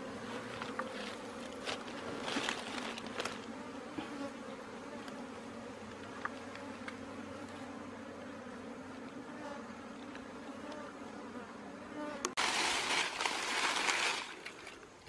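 Honey bees buzzing around their dug-out ground nest after its combs have been taken out: a steady hum at an even pitch. Near the end, about two seconds of loud scraping noise.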